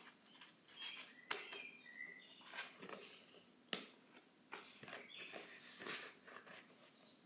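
Faint rustling and clicking of paper cash envelopes and polymer banknotes being handled in a ring binder, with a few short, faint high-pitched squeaks.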